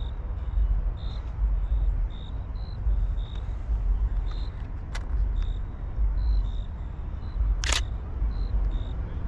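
Camera shutter clicks: one about halfway through and a short burst near the end. Behind them, wind rumbles on the microphone, and a steady series of short high chips repeats a few times a second.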